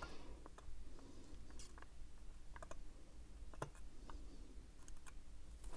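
Faint, scattered light clicks of steel tweezers against the parts of a Seiko 6309 watch movement, as the small setting lever spring is worked over its pin.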